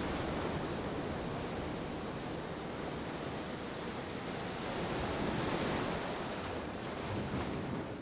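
Ocean surf washing onto a beach, a steady wash of waves that swells a little about five seconds in.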